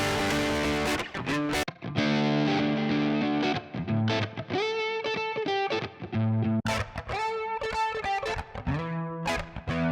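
Electric guitar played through an IK Multimedia TONEX MAX amp-modeling pedal on a distorted drive preset: short phrases of sustained chords and single notes, with a note bent upward near the middle. The tone turns darker about two seconds in.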